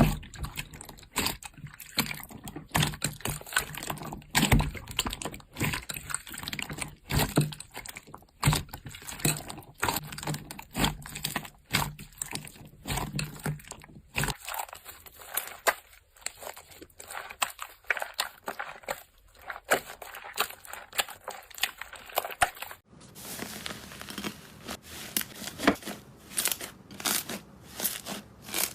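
Slime being squeezed and poked by hand, giving a run of quick crackling pops and clicks. About two-thirds of the way through, the sound changes to a thicker crackle over a light hiss.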